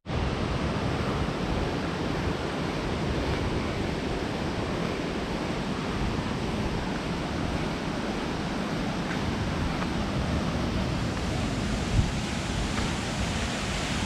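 Steady rushing roar of a waterfall's falling water, even and unbroken, with a single short knock about twelve seconds in.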